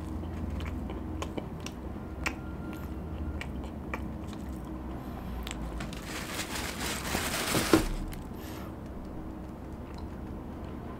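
A person chewing a soft sprinkled cookie close to the microphone, with small mouth clicks. About six seconds in there is a rustle lasting a couple of seconds.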